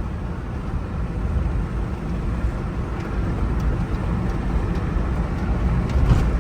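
Truck driving along at a steady speed: a low, steady rumble of engine and road noise in the cab.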